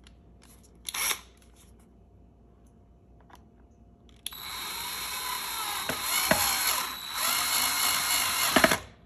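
Cordless drill-driver running for about four and a half seconds, driving a screw into the plastic filter cover of a Dyson Cinetic Big Ball vacuum, with a brief dip in speed partway through. A short knock about a second in.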